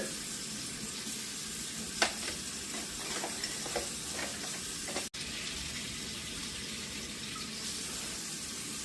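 Kitchen tap running steadily into a sink, with a few light knocks of dishes about two to four seconds in.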